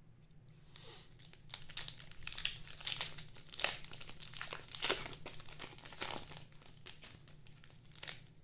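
Plastic wrapper of a trading card pack crinkling as it is torn open and handled: a run of sharp crackles that starts about a second in, is busiest in the middle, with one last crackle near the end.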